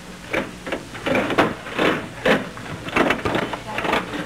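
Mechanical clatter of several teaching machines being worked by students: irregular clicks and knocks, about three a second.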